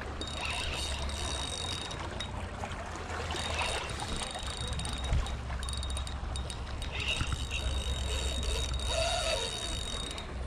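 Wind rumbling steadily on the microphone.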